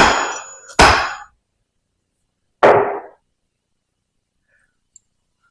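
Three hammer strikes on metal, the first two with a short metallic ring and the third duller, as the piston-and-rod assembly is tapped into the baler's hydraulic cylinder barrel past its tight piston seal.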